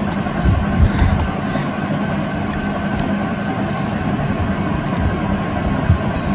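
Steady background noise with a low hum, broken by a few faint short clicks.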